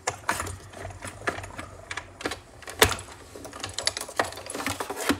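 Hand-cranked Stampin' Up! Cut & Emboss die-cutting machine feeding a plate sandwich with a steel die and cardstock through its rollers. It gives a run of irregular clicks and knocks, with one louder click about three seconds in.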